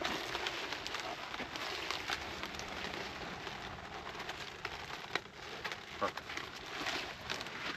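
Leaves rustling and crackling, with sharp snaps scattered through, as leafy greens such as collards are picked and handled by hand.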